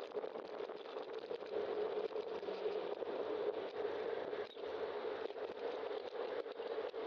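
Steady road noise heard from a bicycle-mounted camera while riding: tyre hum and wind on the microphone, with small knocks and rattles from bumps in the road.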